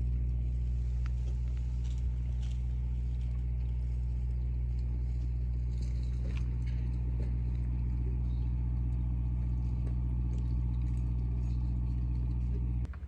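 A boat engine running at a steady, even speed, a low hum that drops away sharply near the end.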